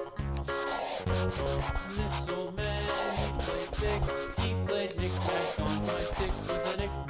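Scratchy back-and-forth rubbing like a marker or crayon on paper, in long runs broken by short pauses, over an instrumental tune with a repeating bass line.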